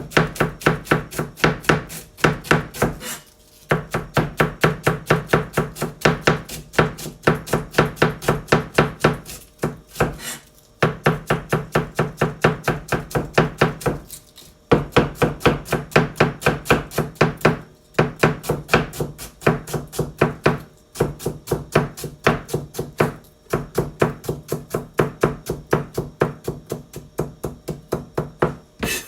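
Kitchen knife shredding cabbage finely on a cutting board: rapid, even chopping strokes in runs of a few seconds with brief pauses between them.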